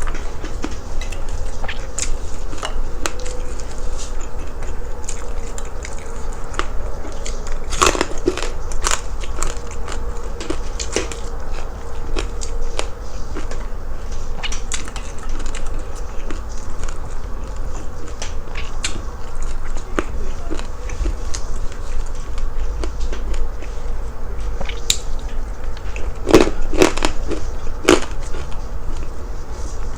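Close-miked biting and chewing of crispy fatty pork, with scattered crackling crunches over a steady low hum and bursts of louder crunching about a quarter of the way in and again near the end.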